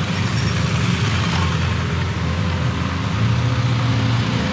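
Road vehicle engines running close by, a steady low rumble with traffic hiss, a deeper engine note swelling about three seconds in.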